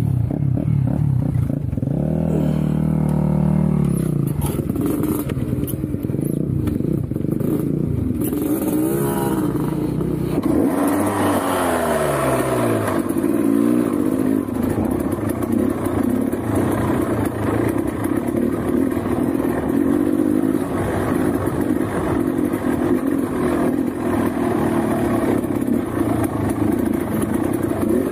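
Trail motorcycle engine coming in loud at once, revving with its pitch rising and falling several times over the first dozen seconds, then running steadily.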